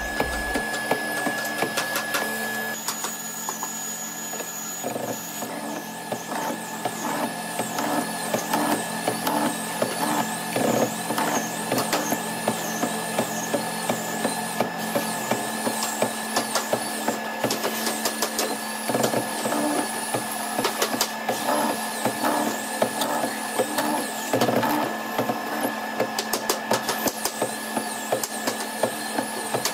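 Woodworking mortising machine running with a steady motor whine while its cutter chatters through a solid-wood bed rail, in rapid irregular clicks that grow denser about halfway through.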